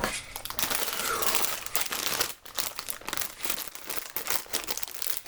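Thin plastic Lego parts bag crinkling as it is handled and torn open, a dense run of crackles with a short pause about halfway through.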